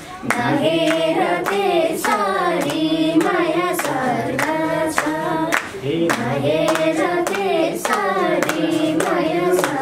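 Voices singing a Nepali dohori folk song, with hand claps keeping a steady, rhythmic beat.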